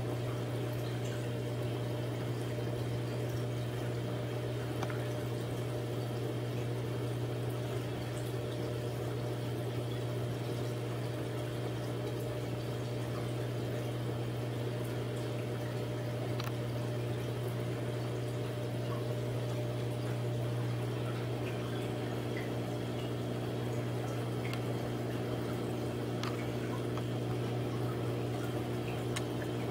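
Reef aquarium's water pump running with a steady low hum, over the constant trickle and bubbling of circulating water.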